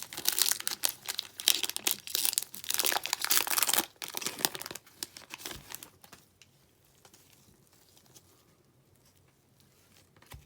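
Wrapper of a 2021 Topps Garbage Pail Kids Sapphire trading card pack being torn open and crinkled. The crinkling is loud for about four seconds, then thins out and stops about six seconds in.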